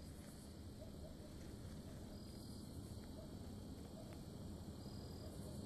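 Faint night ambience: insects chirping in short repeated calls over a low steady background noise.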